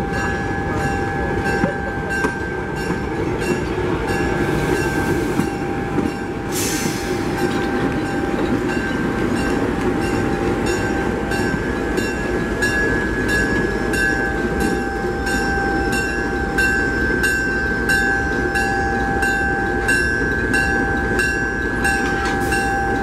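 Passenger train of Southern Pacific coaches and a diesel locomotive rolling slowly past on the rails, with a steady high wheel squeal over the rumble. A bell rings steadily, about two strokes a second. A short hiss of air comes about six seconds in.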